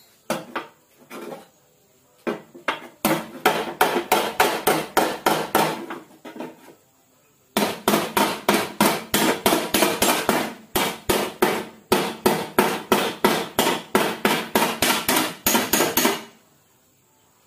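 Hand hammer beating the sheet-metal front inner fender of a crash-damaged Toyota Hilux Vigo straight: a few scattered blows, then a quick run of strikes, a short pause, and a longer run at about four strikes a second that stops about a second before the end.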